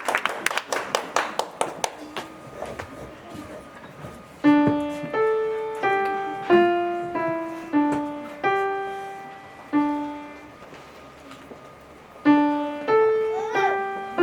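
Applause dying away, then a piano playing a slow melody of single held notes, one struck about every half second to second, with a pause of about two seconds before the melody goes on.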